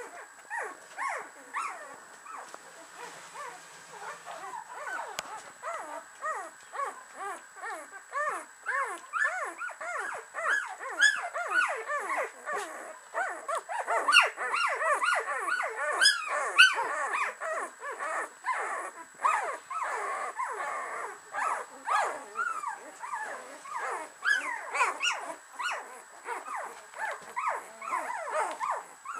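A litter of 13-day-old Samoyed puppies whimpering and squeaking: many short, overlapping high whines in a constant stream, growing busier and louder toward the middle.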